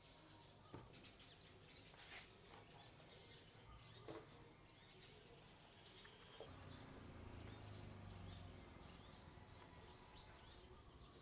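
Near silence: faint outdoor background with distant bird chirps, a few light clicks, and a faint low hum rising and fading in the second half.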